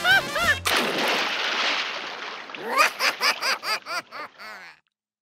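Toy monster trucks splashing into a paddling pool: a noisy splash of water lasting about two seconds, following the end of a cheerful music jingle. Then a short rising chirp sound effect repeats quickly, echoing and fading away.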